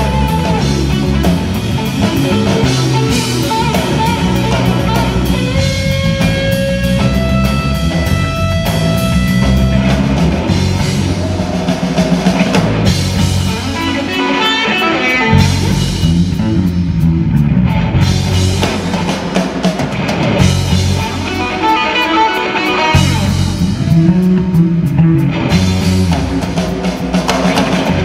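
Live instrumental rock played by a three-piece band: electric guitar playing lead lines with held, bent notes over electric bass and drum kit. The bass and drums drop out briefly about halfway through, then come back in.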